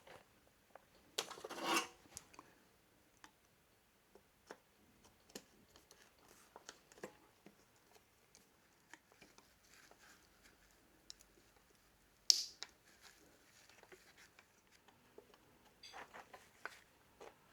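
Faint clicks and scrapes of small metal engine parts and hand tools being handled, with a short rustle about a second in and one sharp click about twelve seconds in.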